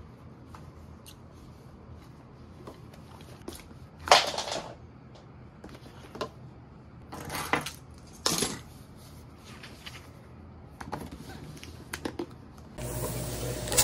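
Small items being picked up, moved and set down on a desk, with light clicks and knocks and three short louder rustling, clinking bursts. Background music comes in just before the end.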